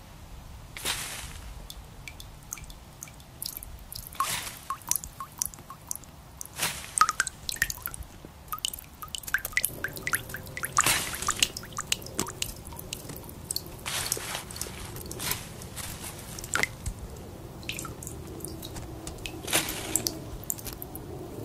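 Irregular drip-like plops and clicks, some with a short ringing pitch, joined about halfway through by a faint low steady tone.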